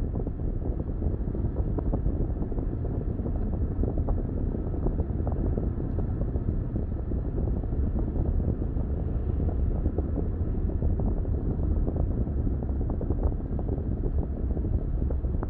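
Steady low rumble of a car driving, with road noise and wind noise.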